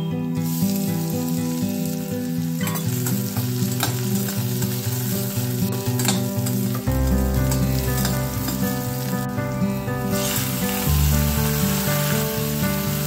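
Chopped onions sizzling in hot oil in a stainless steel kadhai. The sizzle starts suddenly as they go in and runs on while they are stirred with a ladle, with a few sharp clinks of the ladle against the pan.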